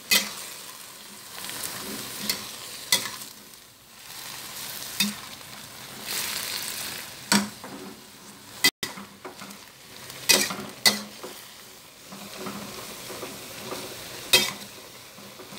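Choy sum sizzling in an oiled wok while it is stir-fried, with a spatula scraping and knocking sharply against the wok about ten times at irregular intervals.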